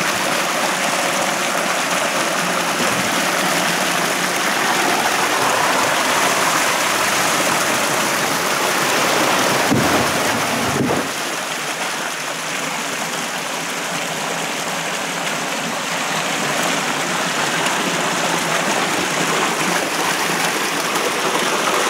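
Water flowing through a large round culvert pipe, a steady rushing hiss echoing in the tube, with a couple of low thumps about ten seconds in.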